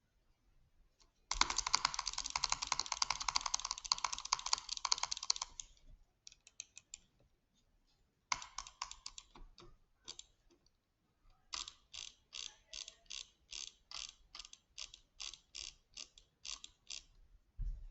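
Mechanical clicking: a fast run of clicks lasting about four seconds, a few scattered clicks and a short burst, then an even series of about three clicks a second. A low thump comes near the end.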